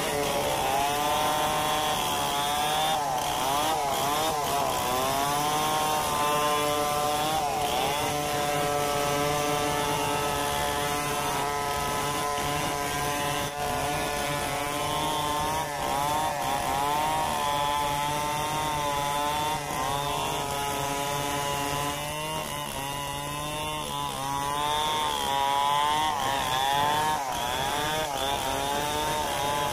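Large two-stroke chainsaw running at full throttle, ripping lengthwise through a hard acacia mangium log; its engine pitch wavers up and down as the chain bites and eases in the cut.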